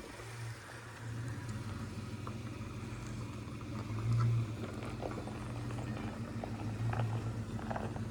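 A vehicle engine running at low speed with a steady low hum, swelling briefly about four seconds in and again around seven seconds as it is manoeuvred to back a trailer.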